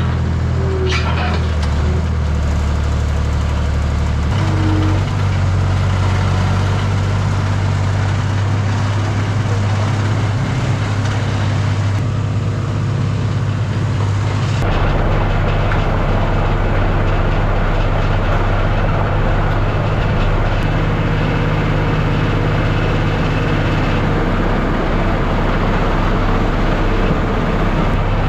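Skid steer engine running steadily. Its pitch shifts about four seconds in, and the sound changes abruptly about halfway through.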